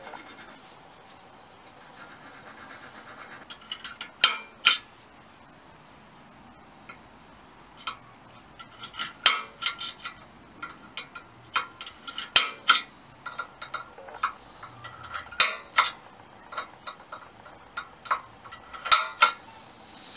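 Faint scraping, then a series of sharp metallic clicks, several in close pairs, as a centre punch is set on steel rivet heads holding a motorcycle frame's VIN plate.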